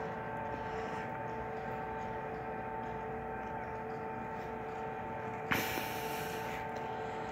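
Steady hum of distant machinery carrying a few fixed tones, with a brief rush of hiss about five and a half seconds in.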